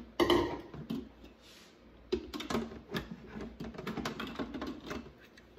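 Instant Pot pressure cooker lid being handled and twisted on the pot. A loud clatter comes right at the start, then about two seconds in a run of irregular clicks and light scrapes as the lid turns.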